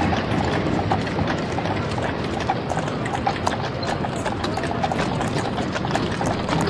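Horse hooves clip-clopping on a street, many irregular knocks over a steady background of street noise.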